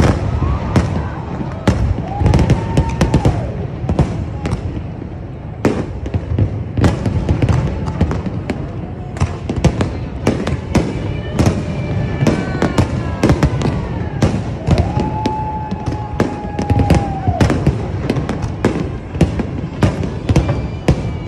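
Fireworks display: a dense, continuous barrage of sharp bangs and crackling shell bursts over a steady low rumble, with a few whistling tones, some falling in pitch, mixed in.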